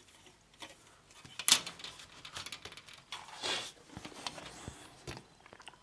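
A plastic model-kit sprue being handled and turned over, giving light plastic clicks and rustling with a few louder scrapes.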